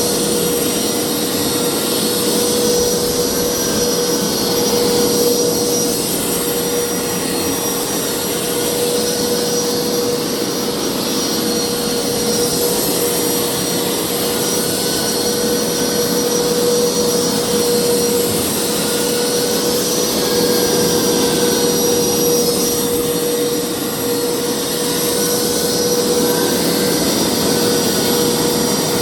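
Hoover carpet cleaner running steadily: a constant motor whine over a rushing suction noise.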